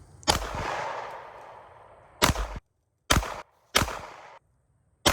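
Five gunshots at uneven spacing. The first and last ring out with a long fading echo, and the sound after some of the middle shots cuts off abruptly.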